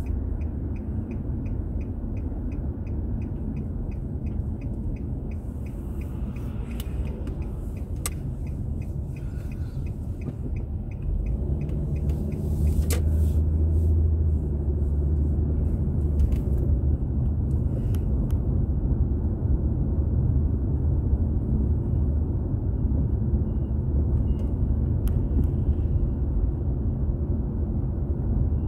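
Car driving, heard from inside: a steady low rumble of engine and road noise that grows louder about eleven seconds in. A fast, even ticking runs through the first eleven seconds.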